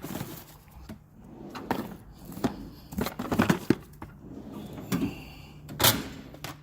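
Metal hand tools clinking and clattering as they are handled in a toolbox drawer: a string of irregular short knocks and clicks.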